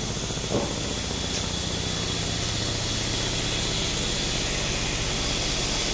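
Sawmill machinery, a large wheel-driven band saw and its drive, running steadily: a low hum with a thin high whine over a constant rushing noise. A brief sharp sound stands out about half a second in.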